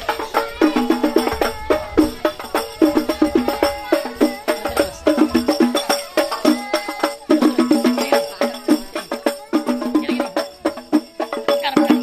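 Rebana frame drums, some with jingles, beaten by hand in a fast, repeating rhythm, the ensemble drumming of a hadrah procession.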